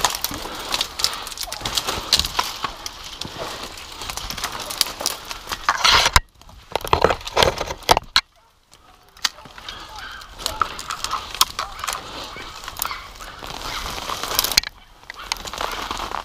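Dry branches and brush rustling, scraping and snapping against a person pushing through a dense thicket on foot, a continuous run of crackles with a few sudden short gaps.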